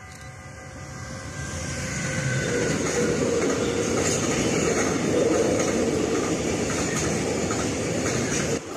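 Freight train hauled by a Siemens Vectron electric locomotive passing close by: the locomotive goes past and a long line of container wagons follows, their wheels running on the rails. The sound grows louder over the first few seconds, holds steady, then cuts off suddenly near the end.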